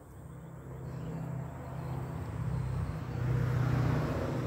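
A motor vehicle going past: a low engine drone that grows louder, peaks about three and a half seconds in, then begins to fade.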